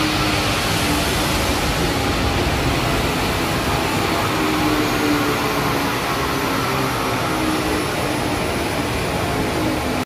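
Turbo-diesel engine of an Isuzu MU-X 2.5L running steadily on a chassis dynamometer, with the rollers and cooling fans adding a constant rushing noise. A faint high whine slowly falls in pitch in the second half.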